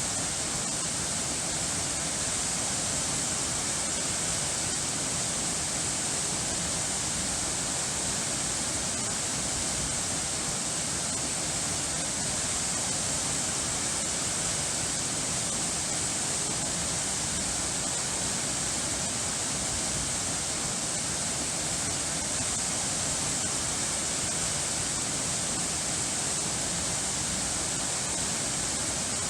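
Steady rush of falling water, an even hiss that does not change, with no music or birds over it.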